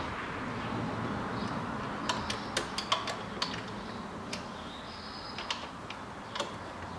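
Sharp metallic clicks and clinks of hand tools and small metal parts being handled while fuel lines are bolted down on an engine, several in quick succession about two to three and a half seconds in, then a few single ones, over a steady low hiss.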